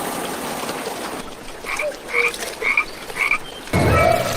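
Frog croaking: four short croaks about half a second apart, then a louder burst near the end.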